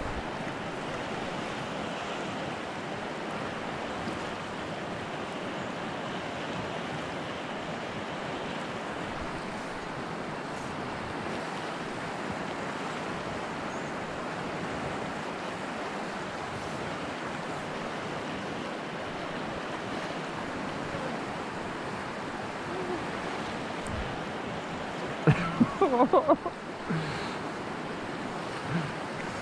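Steady rush of a fast-flowing river's current. A cluster of short, loud sounds comes near the end.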